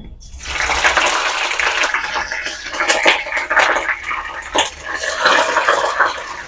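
Water running and splashing as ikan pindang (salted boiled fish) is washed, with scattered clinks and knocks of a tray and utensils. It starts about a third of a second in.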